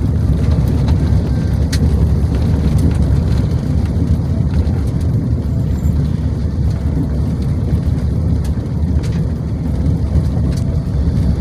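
Steady low rumble of a car driving along a road, engine and tyre noise, with a few faint ticks.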